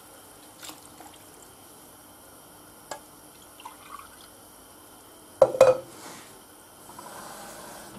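Watery stew broth in a frying pan on the hob beginning to heat, with faint bubbling and a few small drips and ticks. About five and a half seconds in comes a single short, loud clack.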